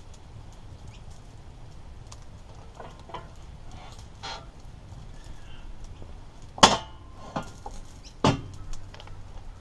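Homemade steel-plate barbecue firebox door swung shut with a sharp metallic bang, then its latch knocked closed with a second sharp strike about a second and a half later. Small scattered clicks come before the bangs.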